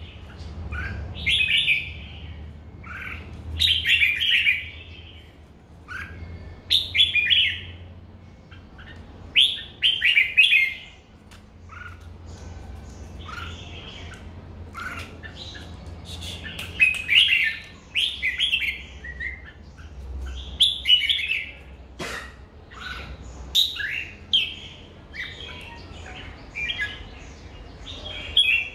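Red-whiskered bulbul singing: short, bright, warbling phrases repeated every one to three seconds, with brief pauses between them.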